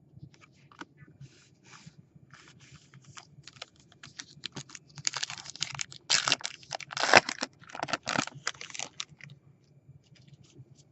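Foil wrapper of a baseball card pack being torn open and crinkled, with a run of quick crackling rustles that is loudest in the middle, along with cards being handled.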